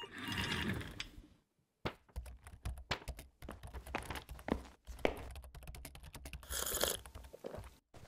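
Faint, irregular clicks and taps over quiet room tone, with a short soft hiss about six and a half seconds in.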